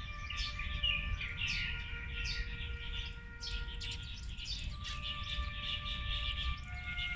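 Many small birds chirping together in quick, downward-sweeping notes, over slow held chords of soft background music that shift every few seconds, with a steady low rumble beneath.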